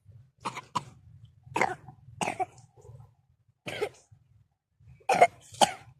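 A series of short, harsh coughs, about seven in all, some coming in quick pairs, with the loudest pair near the end.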